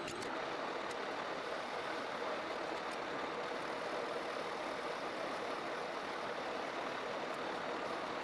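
Metal lathe running, its cutting tool taking a facing cut across a spinning metal disc held in the chuck: a steady machining noise.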